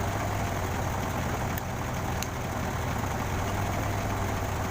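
A truck crane's engine idling steadily, with two faint ticks about one and a half and two seconds in.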